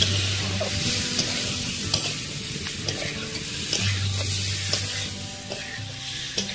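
Boiled eggs and potato pieces frying in masala in a kadhai, sizzling steadily while a spoon stirs them and scrapes against the pan with many small clicks.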